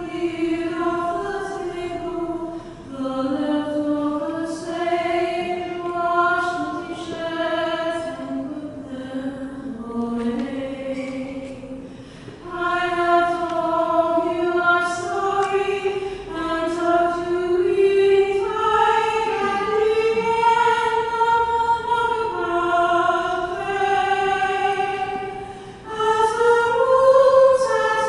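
Women's choir singing a slow lullaby. The singing grows louder and fuller about twelve seconds in.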